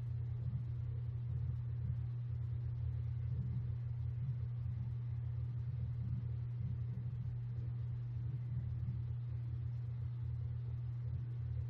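Steady low hum, with no other sound over it.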